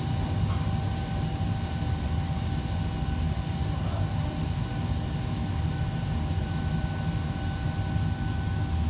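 Steady low drone of running machinery, with two faint steady high-pitched tones held over it.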